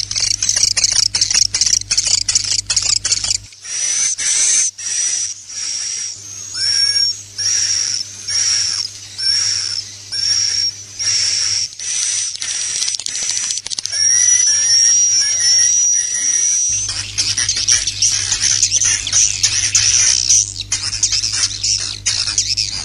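Swiftlet roosting calls, as played in swiftlet houses to lure the birds: dense high chirping and twittering. From about four seconds in it thins to separate repeated calls, each with a short whistled note, then turns dense again near the end. A low steady hum runs under the dense stretches.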